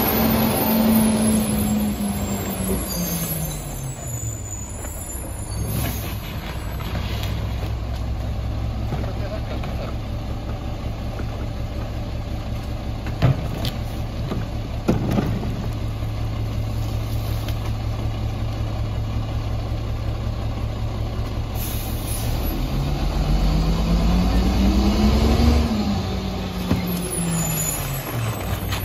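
Mack MR garbage truck's diesel engine slowing as the truck pulls up and stops, then idling steadily. Two sharp knocks come from cans being dumped into the McNeilus rear-loader hopper. Near the end the engine revs up for a few seconds and drops back as the packer runs.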